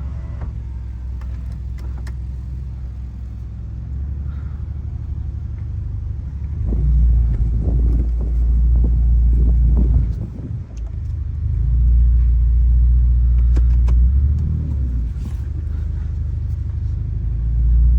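Subaru Legacy's boxer engine pulling the car away on a test drive, swelling louder twice with a brief drop between the two pulls. It runs without its earlier misfire, the low-end acceleration restored after the exhaust headers were dealt with.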